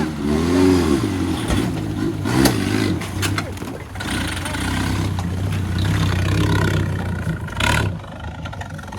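Small off-road 4x4's engine running and revving, its pitch rising and falling over the first few seconds. Several sharp knocks and clatters come in between, with one more near the end.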